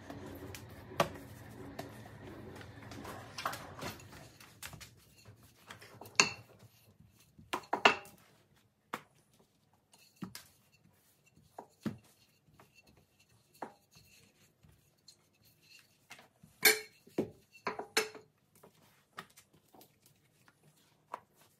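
Bread dough being handled and rolled out with a wooden rolling pin on a granite worktop. Soft handling of the dough gives way to scattered knocks and clicks of the pin and hands against the counter, loudest in a cluster about six to eight seconds in and another about seventeen seconds in.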